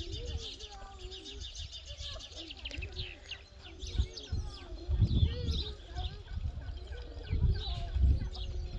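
Small birds chirping and twittering on a hillside where hens forage and cluck in wavering, mid-pitched calls. A few loud low rumbles come through about halfway in and again near the end.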